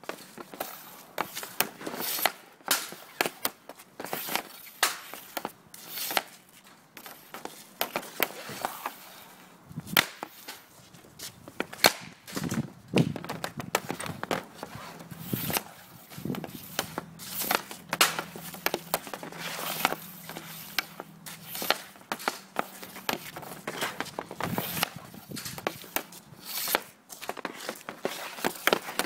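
Hockey shooting practice: Bauer TotalOne NXG and Vapor APX sticks clacking on pucks and on a shooting pad in an irregular run of sharp hits, sometimes several in quick succession.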